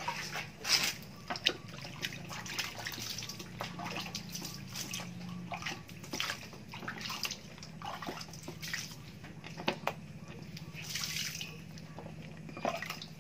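Water splashing and dripping in short, irregular splashes as a muddy foam filter sponge is squeezed out and rinsed by hand in a small plastic water dipper.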